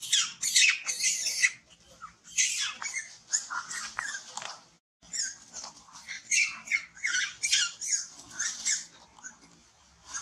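Macaque screaming in distress while being attacked and pinned by another monkey: a string of short, shrill cries several times a second, broken by a brief silence about halfway through.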